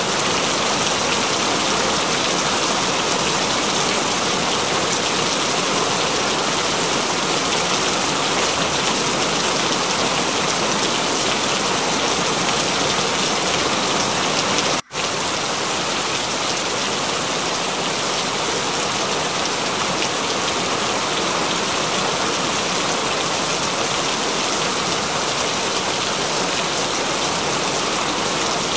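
Steady continuous rain, an even hiss of falling drops, broken by a split-second dropout about halfway through.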